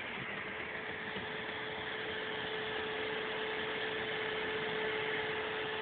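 Y-axis stepper motor of a Prusa Mendel i2 3D printer running with a steady whine at one pitch over a steady hiss. The whine grows in about a second in and fades near the end.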